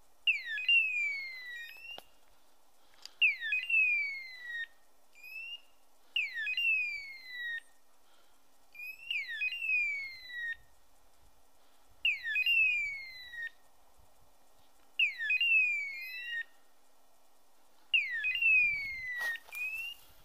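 A pointing dog's beeper collar in point mode, sounding the same descending electronic hawk-scream call about every three seconds, seven times. This is the signal that the dog has stopped and is standing on point.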